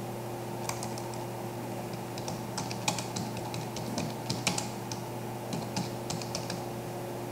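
Typing on a computer keyboard: irregular key clicks in short runs, over a steady low background hum.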